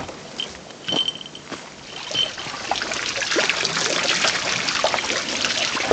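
Scattered rustling steps with a few short high chirps, then from about two and a half seconds in, water splashing and trickling steadily off large wooden waterwheels.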